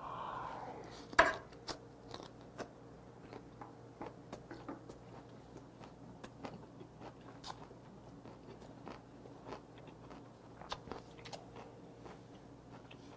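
Close chewing of a mouthful of grilled beef steak and blanched gaedureup (prickly castor-oil tree shoots), with many small wet mouth clicks. A single sharp knock about a second in, as the fork is set down on the wooden cutting board.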